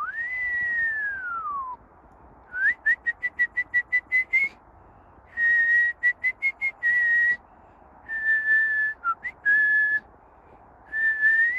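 A person whistling: one long note that slides down in pitch at the start, then a quick run of short chirping notes, then groups of held notes on a steady pitch with pauses between them.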